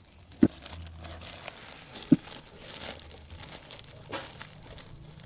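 Plastic wrapping crinkling as it is cut open and pulled apart by hand, with two sharp knocks, one about half a second in and one about two seconds in.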